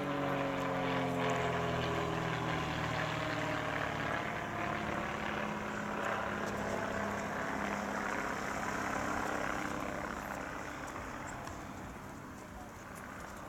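SIAI-Marchetti SF-260's six-cylinder Lycoming piston engine and propeller in flight; the engine note falls in pitch in the first second or two, then holds steady, growing fainter near the end.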